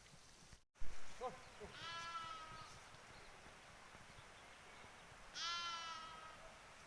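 Two long bleats from livestock, one about two seconds in and another near the end. A sudden loud bump comes just before the first, about a second in.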